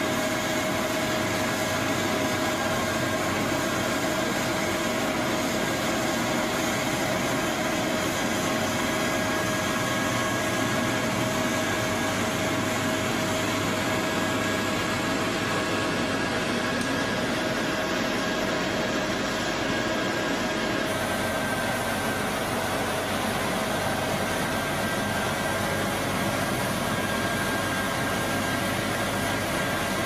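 Heavy road-paving machinery running steadily, a diesel drone with a faint steady whine over it.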